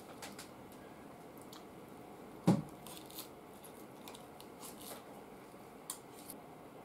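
Eating sounds at the table: wooden chopsticks clicking on a plate while picking up lettuce, with one sharp knock about two and a half seconds in. Then faint crunching as the lettuce is bitten and chewed.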